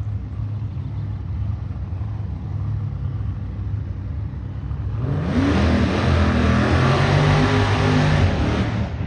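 Supercharged Chevrolet drag car engine running low and steady, then about five seconds in launching at full throttle, the engine note rising sharply and much louder before it cuts off abruptly near the end.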